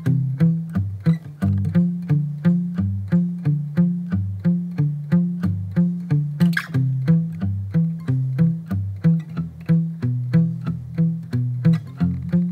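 Steel-string acoustic guitar played thumb-only: a steady Travis-picking alternating bass line, low notes plucked evenly as the chords change (C, G7, E, F). A short scrape about halfway through.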